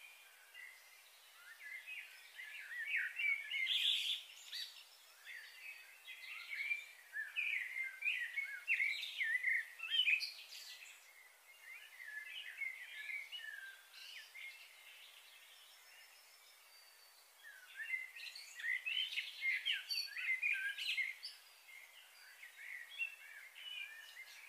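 Birds chirping and twittering in rapid short notes, in two busy spells with a quieter lull between them.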